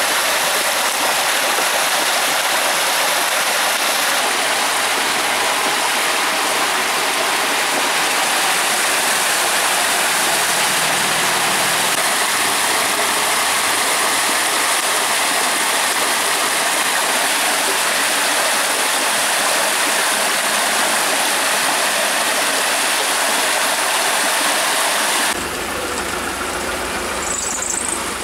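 Torrential thunderstorm rain pouring down in a loud, steady hiss. About three seconds before the end it cuts off abruptly to a quieter sound with a low rumble.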